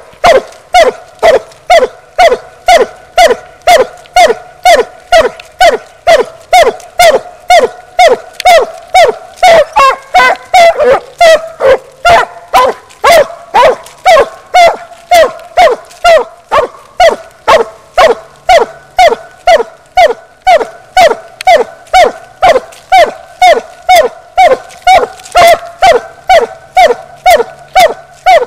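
A coon hunting dog barking treed at the foot of a tree: short chopped barks, about two a second, each dropping in pitch, kept up without a break and a little ragged around ten to thirteen seconds in. This steady tree bark is the dog's signal that it has a raccoon up the tree.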